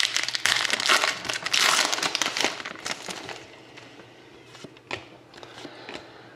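Plastic trading-card pack wrappers being crumpled and handled: dense crinkling for about three seconds, then quieter, with a few light taps.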